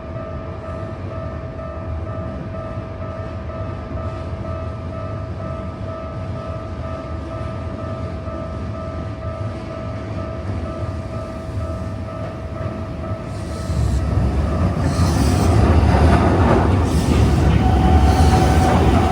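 Level-crossing warning bell ringing steadily, then a Keikyu electric train passes at speed after about fourteen seconds, its heavy rumble and wheels clattering over the rail joints drowning the bell.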